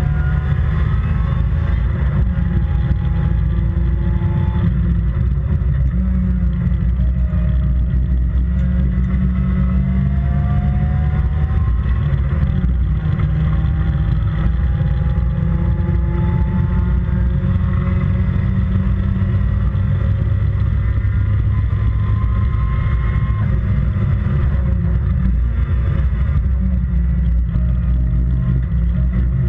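Toyota 4AGE 1600cc twin-cam four-cylinder on 48mm individual throttle bodies, in an MG Midget race car on track, heard from inside the open cockpit. The engine pitch climbs repeatedly and drops back at gear changes and lifts, over a heavy low rumble.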